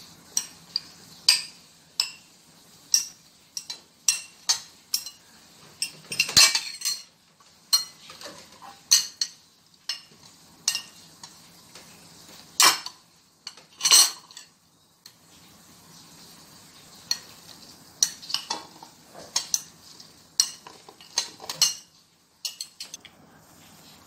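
A spoon clinking and scraping against ceramic bowls in irregular sharp taps, with a few louder knocks, as cut fruit is scooped from small bowls into a large bowl.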